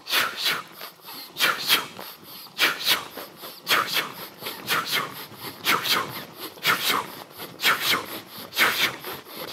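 A person exercising on his back in a shoulder-supported position, his legs working in the air. His breathing and the rustle of his clothing make short hissing, rustling bursts that come in pairs about once a second, in a steady rhythm.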